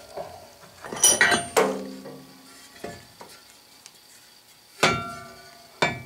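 A steel plate saw table and its steel bracket clanking against metal as they are taken off and handled: a quick cluster of clanks about a second in that leave a short ringing, then two more sharp clanks near the end.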